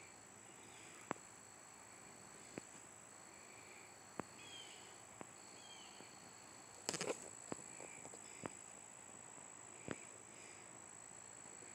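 Faint background with a steady high-pitched whine and sharp ticks every second or two, a brief louder clatter about seven seconds in.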